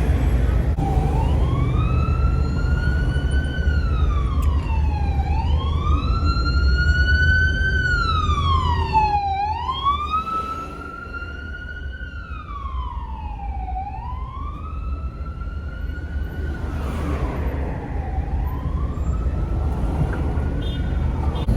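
Emergency vehicle siren wailing, its pitch slowly rising and falling about every four and a half seconds, over a low rumble of traffic.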